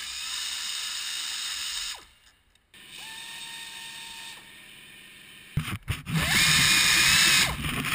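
Pneumatic air ratchet spinning out bolts in three runs: one at the start, a quieter one after a short pause, and the loudest one near the end.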